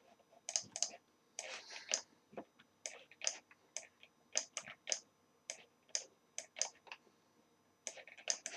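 Computer keyboard typing and mouse clicks: irregular keystrokes in short clusters, with a brief pause near the end.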